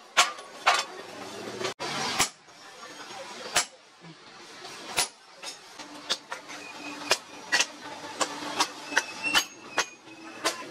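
Hand hammer peening a red-hot steel rivet through a cleaver blade on a steel post anvil: sharp metallic strikes, widely spaced at first, then about two a second in the second half. A low steady hum joins about halfway.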